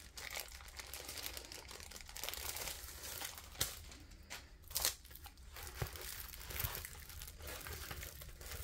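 Plastic packaging crinkling and rustling as it is handled, with a few sharper crackles near the middle.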